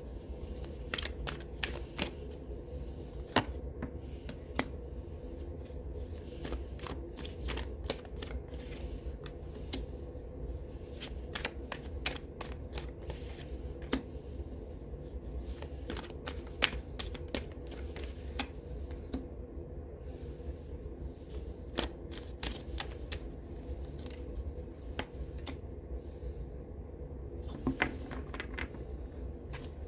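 Tarot cards being shuffled by hand: an irregular run of sharp card clicks and snaps over a steady low hum.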